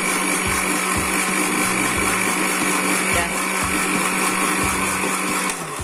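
Cheap electric blender running steadily, grinding kencur (aromatic ginger) root with water to a finer paste. Near the end it is switched off and the motor hum slides down as it winds down.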